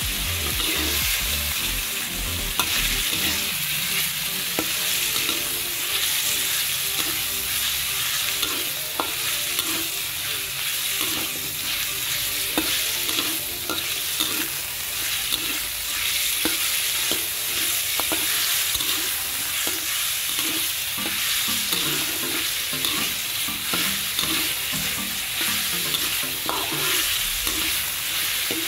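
Chicken pieces and chopped garlic sizzling steadily in hot oil in a steel wok while a spatula stirs and turns them, knocking and scraping against the pan in scattered sharp taps.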